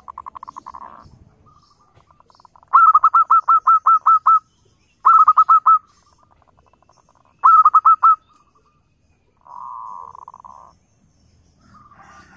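Zebra dove (perkutut) cooing. A purring trill gives way to three bursts of rapid staccato coos, about nine notes, then five, then four, and another purring trill follows near the end.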